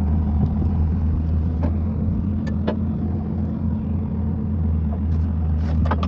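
Farm tractor's diesel engine idling steadily beside the corn picker's wagon hitch, a low even drone, with a few faint metallic clicks as the hitch pin is worked.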